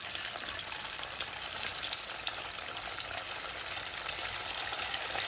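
Marinated fish pieces, coated in corn and rice flour, sizzling in hot oil as they are slid in to deep-fry: a steady hiss with dense fine crackling.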